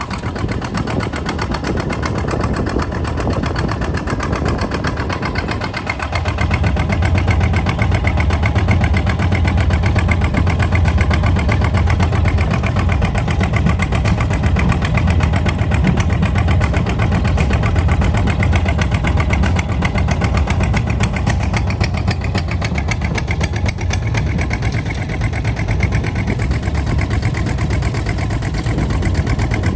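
Kubota ZT155 DI single-cylinder diesel engine of a two-wheel hand tractor running steadily while driving, a rapid, even chugging. Its low rumble grows heavier about six seconds in.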